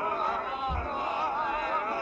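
Film soundtrack music with several sustained melodic lines playing together, each wavering in pitch. A brief low thump comes about two-thirds of a second in.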